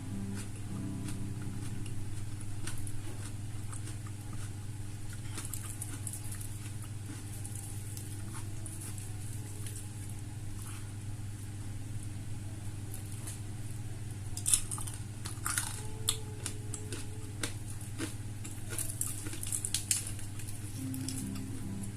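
Close-up eating sounds: chewing, lip smacks and small wet clicks from a mouth, with a few louder crunchy bites about two-thirds of the way through. A steady low hum runs underneath.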